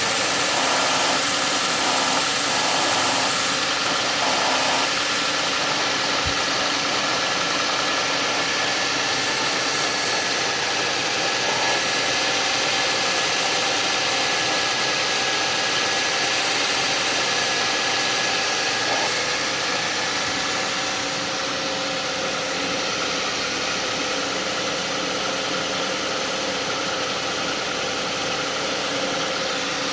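Suzuki Grand Vitara's 2.7-litre V6 idling steadily just after a cold start, with a steady grinding noise running through it that the owner calls weird. A high hiss over the engine fades a few seconds in.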